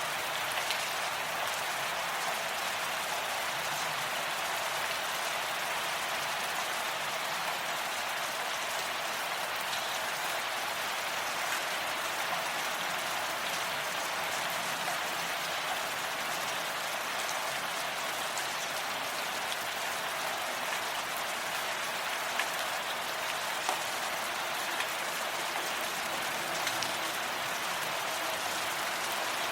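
Steady rainfall: an even hiss of rain with a few individual drops ticking out now and then.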